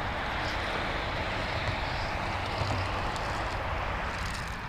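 Steady road traffic noise from cars and trucks passing close by, with a brief light splashing near the end as a small bass is hooked and thrashes at the surface.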